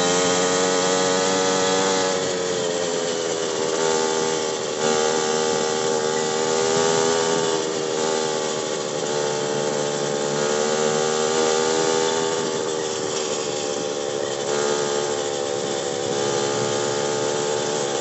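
Kawasaki Ninja motorcycle engine running at a steady cruising speed, heard from the rider's seat, its pitch dipping and rising slightly with small throttle changes, over a hiss of wind and road noise.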